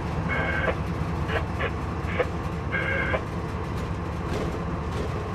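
Inside a diesel locomotive cab: steady low rumble of the moving train, engine and wheels on rail, with several short high-pitched tones or chirps during the first three seconds.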